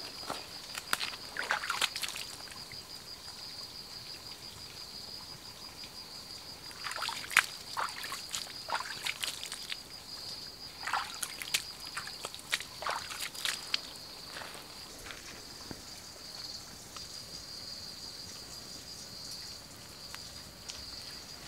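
Raw chicken being rinsed by hand in a small muddy pool: water splashing and sloshing in three bouts, near the start, then from about seven seconds and again from about eleven to fourteen seconds. A steady high-pitched tone runs underneath throughout.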